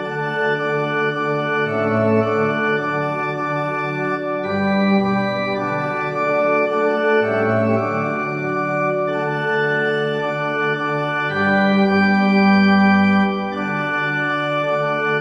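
Slow, sustained organ-style background music: held chords that change every two to three seconds.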